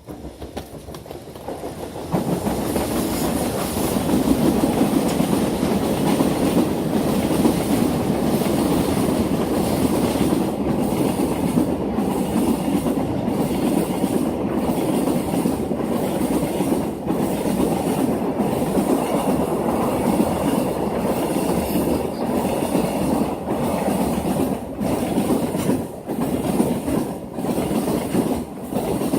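Freight train passing at close range, its wagons' wheels clattering over the rail joints in a steady, regular rhythm. The sound builds over the first two seconds as the train arrives, then stays loud.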